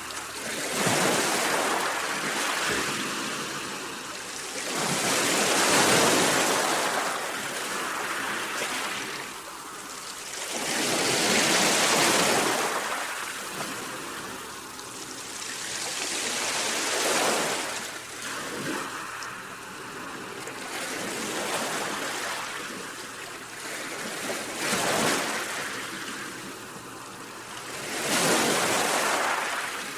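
Sea waves breaking and washing ashore, each swell rising and falling over a few seconds.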